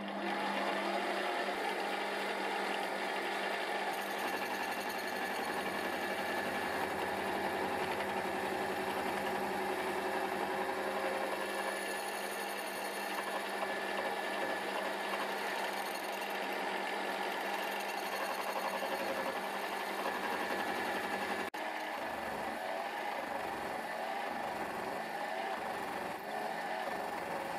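Milling machine running a slitting saw through aluminium bar stock, cutting a slot: a steady machine drone with a whine over it. There is a brief break about three-quarters of the way through.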